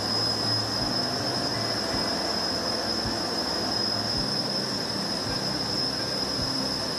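A steady high-pitched whine over a constant rushing noise, with faint low knocks now and then.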